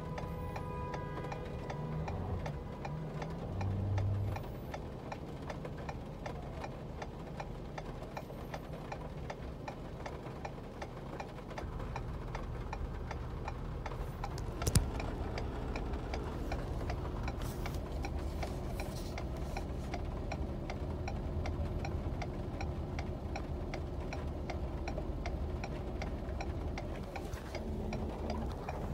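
A vehicle's turn-signal or hazard flasher ticking at a steady, even pace inside the cab, with one sharp click about 15 seconds in.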